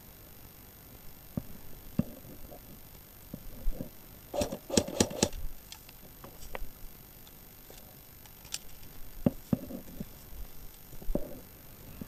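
Scattered knocks and clicks, with a quick run of four or five sharp clicks about halfway through.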